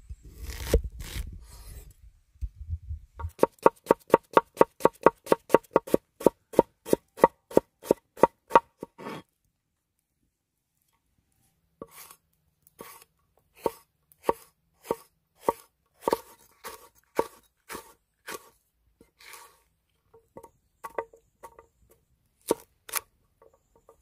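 Cleaver chopping food on a wooden cutting board. It opens with heavy crunching strokes as the blade splits a peeled onion, then fast even chopping at about five strokes a second. After a few seconds' pause come slower, separate chops through a green chilli.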